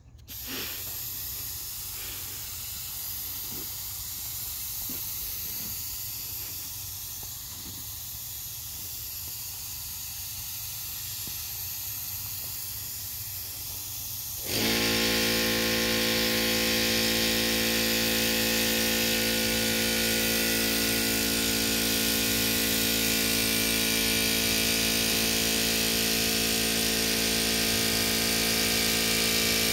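Gravity-feed paint spray gun hissing steadily as it sprays single-stage paint. About halfway through, an air compressor motor starts and runs with a steady hum, and the sound gets louder.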